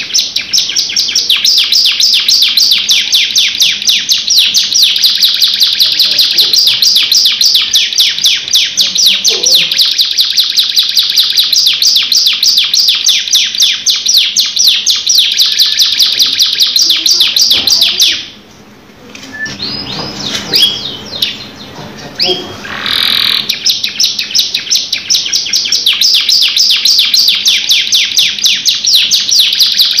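Domestic canary singing a long, rapid rolling trill of many notes a second. About 18 seconds in it stops, leaving only a few faint sounds, then takes up the fast trill again about five seconds later.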